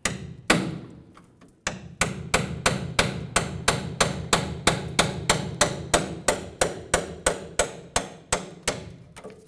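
Hammer blows on a punch driving a rusted tail light junction block out of a truck's steel frame rail: two single strikes, then a steady run of quick blows, about four a second, growing fainter near the end.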